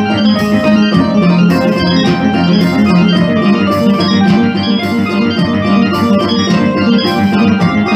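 Cheap Yamaha electronic keyboard improvising in an organ-like voice: shifting sustained notes over a steady low drone, with a regular beat in the highs about once a second.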